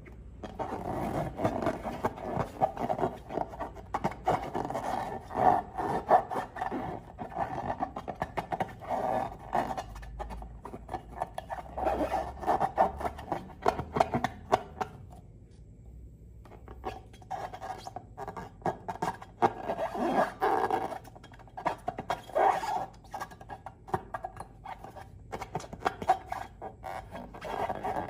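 Slime and balloons being handled, with rubbing, squeaking and squelching and many small sticky clicks. The sound eases off briefly about halfway through.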